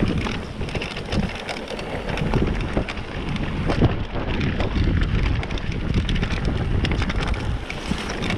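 Mountain bike riding down a rough dirt singletrack. The tyres crunch over dirt and stones and the bike rattles and clicks over bumps, with wind rumbling on the microphone.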